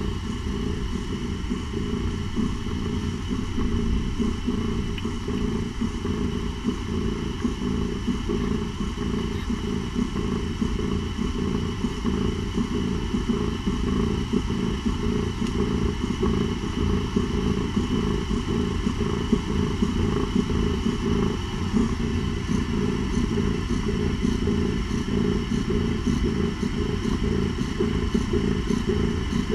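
Mother cat purring steadily as she nurses her kittens: a continuous low, fluttering rumble.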